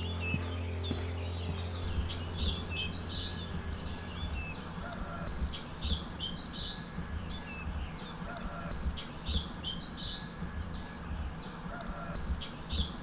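A songbird singing a repeated phrase of rapid high notes, a new phrase about every three and a half seconds, with a lower call now and then between phrases. Background music fades out in the first two seconds.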